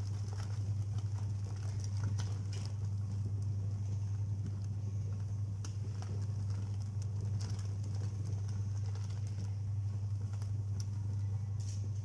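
Top-loading washing machine on its wash cycle: the motor hums steadily while the tub churns clothes through soapy water, with faint sloshing and scattered small clicks.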